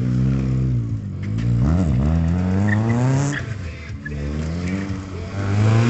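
Small rally car's engine revving hard while it circles a barrel, its pitch climbing and falling several times as the throttle is worked, with a sharp dip near two seconds in.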